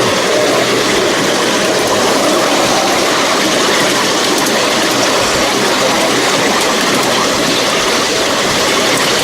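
Miniature railway train running steadily along the track, heard from aboard: a continuous noise of the wheels on the rails and the train's movement.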